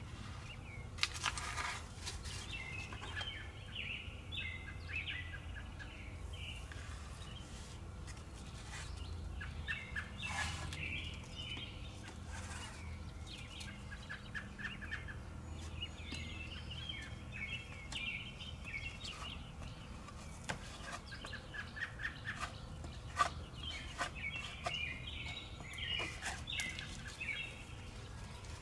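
Birds chirping and chattering in repeated bursts, with a few light knocks and a low steady hum underneath.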